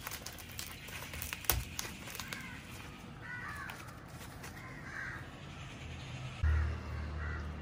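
A large leaf rustling and crumpling as it is folded over the open end of a bamboo tube, with a few light handling knocks. Three short, harsh bird calls sound in the background, and a low rumble comes in near the end.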